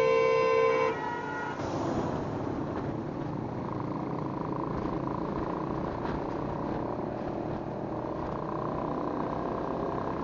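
A vehicle horn blares one steady note and cuts off about a second in. After it comes the steady sound of a moving motorcycle: engine and wind noise on the bike-mounted camera.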